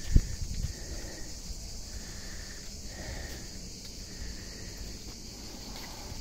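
Steady high chirring of an insect chorus, with footsteps on a dry-leaf-covered forest path. A heavy thump just after the start is the loudest sound.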